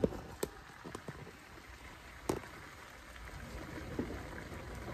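Cabbage simmering in a skillet on the stove with a soft, steady crackling patter. Three sharp clicks of kitchen utensils against the cookware break through it: the loudest right at the start, another about half a second in, and one just after two seconds.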